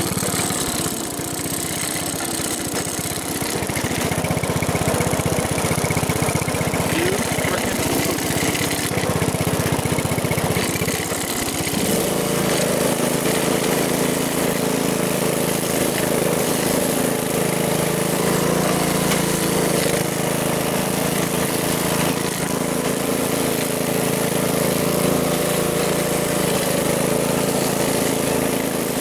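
1969 Chevy Malibu engine running. About twelve seconds in its sound changes abruptly and settles into a steady, even idle.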